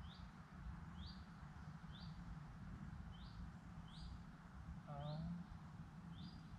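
A songbird calling, the same short rising chirp repeated about once a second, over a low wind rumble on the microphone.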